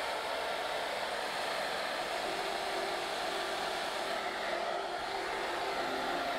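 A handheld electric hot-air blower runs steadily, blowing air over wet epoxy resin poured on leather.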